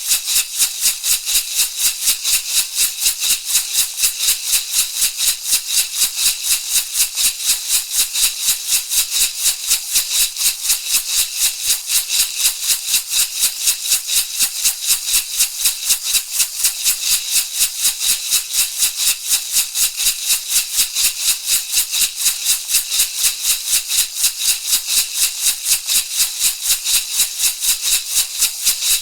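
Shamanic rattle shaken in a steady, even rhythm: a continuous train of bright, crisp shakes with no change in pace.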